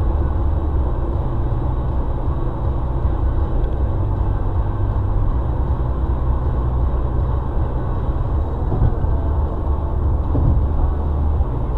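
Steady low rumble of a car travelling at highway speed, tyre and engine noise heard from inside the cabin through a dashcam microphone.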